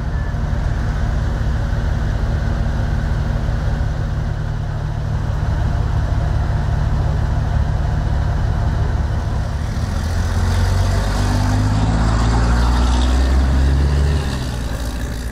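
Big diesel rally-truck engines running at low revs, a steady low drone. About ten seconds in, one truck engine grows louder, its pitch shifting as it pulls away, then drops off near the end.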